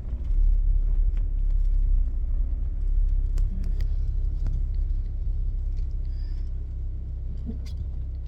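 Car cabin noise while driving: a steady low engine and road rumble, heavier for the first few seconds, with a few faint clicks.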